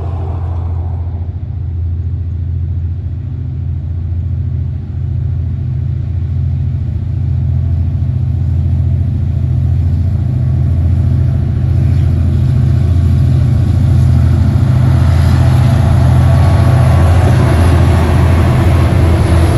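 Diesel-electric locomotives of a coal train, Aurizon 2300 class with 2347D leading, approaching and drawing alongside. A steady low engine drone grows louder, with wheel and rail noise rising over the last few seconds as the locomotives reach the crossing.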